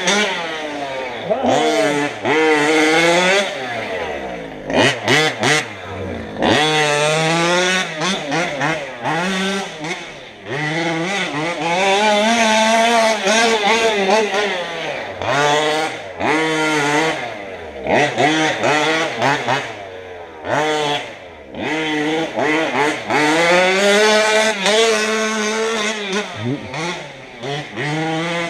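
Small 38cc two-stroke engine of a large-scale gas RC vehicle revving up and down over and over, its pitch rising and falling every second or two with short dips as the throttle is blipped and released.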